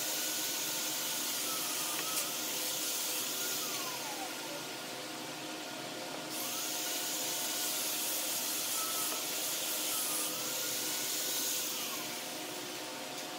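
Steady machine whir: a hum at several pitches under a hiss. The hiss drops out for a couple of seconds in the middle and eases off near the end.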